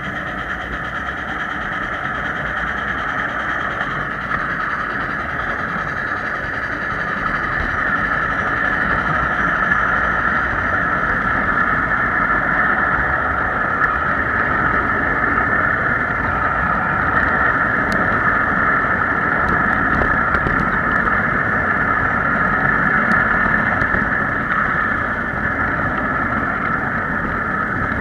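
Backyard ride-on miniature train running along its track: a steady mechanical hum with a low rumble underneath, getting a little louder about eight seconds in.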